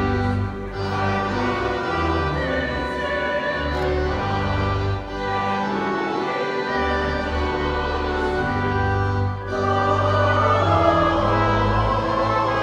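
Choir singing with orchestral accompaniment in sustained chords, with short breaks between phrases. The voices swell a little louder about ten seconds in.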